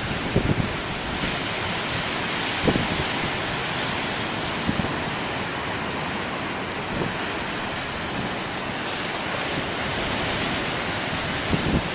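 Waves breaking and washing in as a steady roar of surf, with strong wind buffeting the camcorder microphone in a few low gusts near the start.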